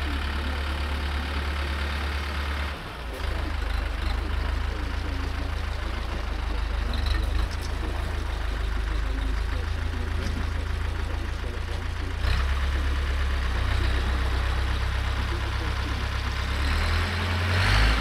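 Compact tractor engine idling, its note changing a few times.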